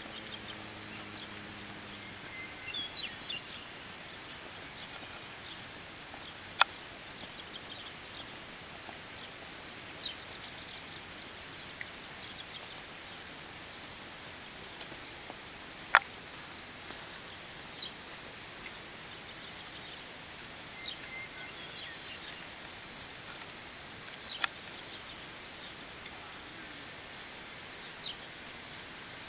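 Quiet outdoor ambience: a faint high chirp repeating evenly a few times a second, with occasional short bird calls. Three sharp clicks stand out, the loudest about halfway through.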